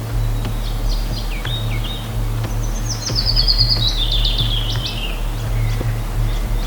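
A songbird singing short whistled phrases, then a rapid trill that falls in pitch in the middle, over the steady low rumble of a waterfall.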